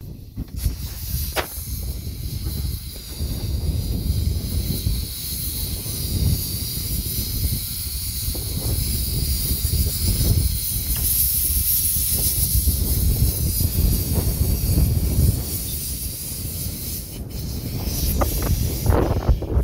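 1925 Vulcan narrow-gauge steam locomotive moving slowly past at close range, with a steady hiss of escaping steam over a low rumble.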